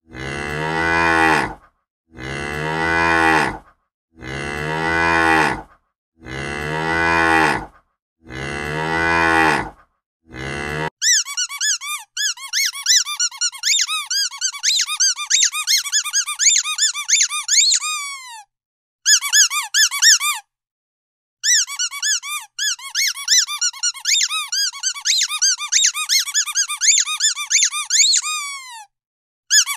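A cow mooing, the same moo repeated about every two seconds five times, the last one cut off short. About eleven seconds in it gives way to a squeaky dog toy squeezed rapidly: many quick high squeaks, each falling in pitch, in runs with two short breaks.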